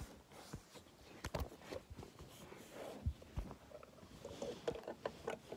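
Soft rustling and scattered light knocks and bumps of a phone being handled and people shifting about, with two firmer thumps a little past three seconds in.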